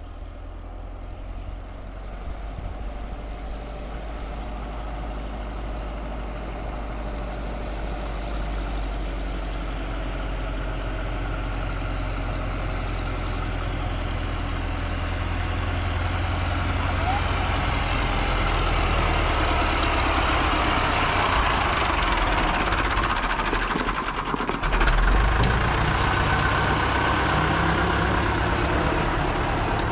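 A vehicle engine running steadily, growing louder over the first twenty seconds, with a low thump about 25 seconds in.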